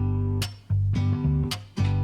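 Background music: strummed guitar chords, each cut short, with a new chord about every second.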